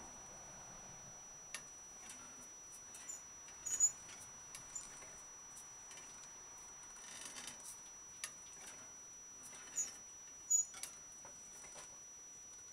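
Wire-mesh exercise wheel turning slowly under a baby opossum, with scattered faint clicks and a few short high squeaks from the wheel and its claws on the wire. The loudest squeaks come about four seconds in and again near ten seconds.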